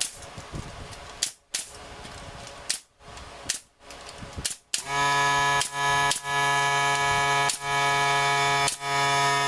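A pneumatic brad nailer firing several sharp shots, fixing trim to a wooden wine rack. About halfway through it gives way to a louder steady sound of several held tones that breaks off briefly a few times.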